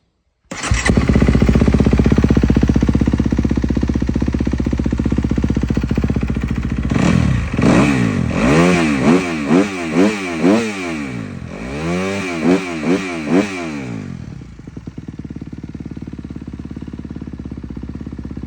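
2022 Kawasaki KX250's 249 cc four-stroke single-cylinder engine starting up about half a second in, freshly reassembled after an oil and air filter change, and running fast. From about seven seconds in it is blipped through a string of quick throttle revs, each rising and falling in pitch, then settles to a lower, quieter idle near the end.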